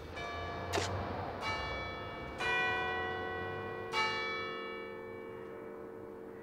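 Bells struck four times at slow, uneven intervals, each stroke ringing on and fading away.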